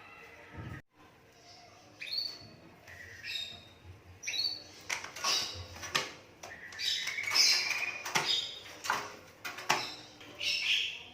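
Asian pied starling (jalak suren) giving a run of short, harsh squawks and chattering calls, sparse at first and busier from about four seconds in, with one longer rising note in the middle.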